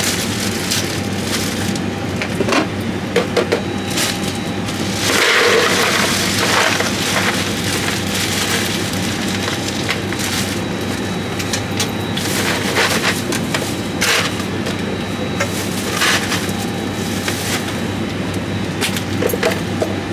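Plastic bags of ice being handled and torn open, the bags crinkling while the ice cubes clink and clatter in short bursts, with a louder stretch about five seconds in. A steady low hum sits underneath.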